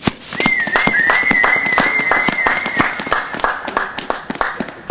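Spectators clapping in a steady rhythm, about three claps a second, under a loud whistle held for about four seconds with a slight waver in its pitch.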